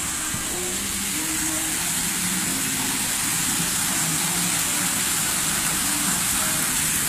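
Water splashing and rushing steadily into a pond, an even, unbroken wash of noise.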